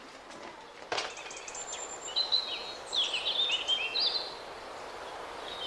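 Small birds chirping in short high bursts over a faint steady background hiss, with one sharp knock about a second in.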